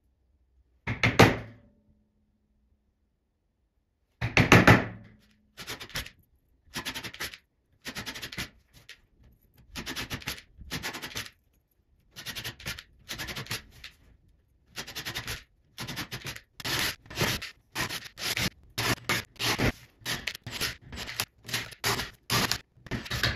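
A hammer strikes a steel chisel about a second in, with a brief ring, and a second heavy strike follows a few seconds later. Then a cordless drill runs in many short trigger bursts, one or two a second, boring small holes into the bent log.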